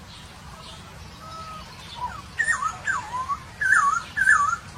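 Poksay hongkong laughingthrush singing: a faint whistle, then a run of loud, wavering whistled phrases that swoop downward, the last two the loudest.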